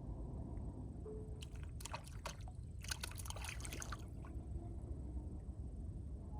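Water splashing and trickling in two short spells over a steady low rumble.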